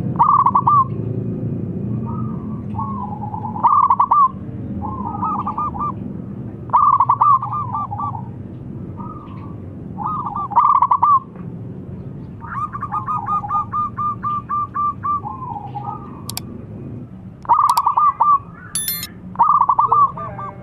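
Zebra dove (perkutut) cooing in its calling song: repeated short phrases of quick, soft pulsed notes, one every second or two, with a longer even run of notes about midway. A few sharp clicks near the end.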